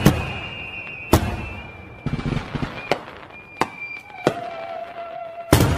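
Fireworks sound effect: single sharp bangs about a second apart, over faint high steady tones, then a quick cluster of bangs near the end.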